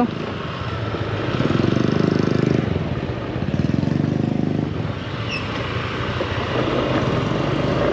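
A Yamaha Aerox 155 scooter's single-cylinder engine running at low speed on a rough road, with the throttle opened briefly twice, about one and a half seconds in and again about three and a half seconds in.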